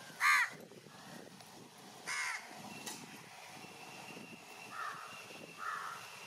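A crow cawing twice, about two seconds apart, with two fainter, shorter calls near the end.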